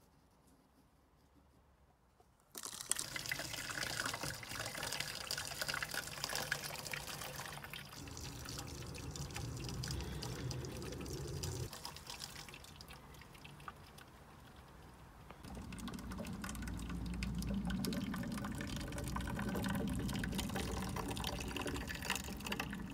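Liquid mercury in glassware: splashing, trickling and dripping in the diffusion pump's glass boiler and condensing tube, starting a couple of seconds in and changing character in several separate stretches.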